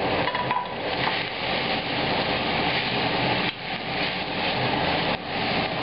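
Chopped mushrooms, carrots and shallots sizzling steadily in hot vegetable oil over high heat in a metal pot, stirred with a utensil.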